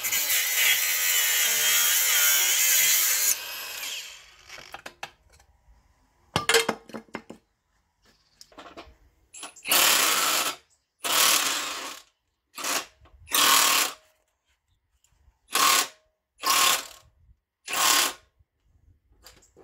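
Milwaukee cordless power tool running steadily for about three seconds and then stopping, followed by a string of about nine short trigger bursts, each under a second and irregularly spaced.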